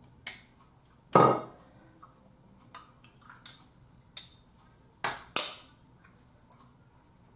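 Glassware and bottles clinking and knocking as a shot drink is mixed: one loud ringing clink about a second in, then a handful of lighter clicks, two close together around five seconds.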